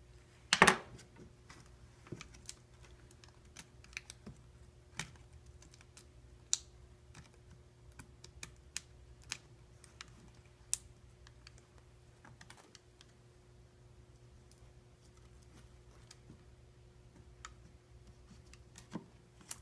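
Scattered small clicks and taps of hand tools and parts being handled on an iPad during reassembly, with one louder knock about half a second in. A faint steady hum runs underneath.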